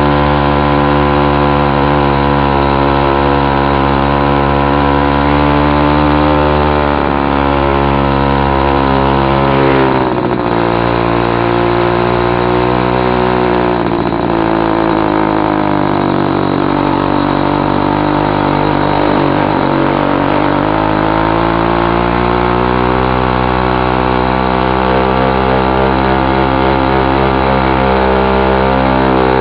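Chinese two-stroke bicycle kit engine ("China girl") running loud with its muffler cap removed, pulling a motorized bicycle uphill under load. Its note dips about ten seconds in, runs lower through the middle, and rises again over the last several seconds.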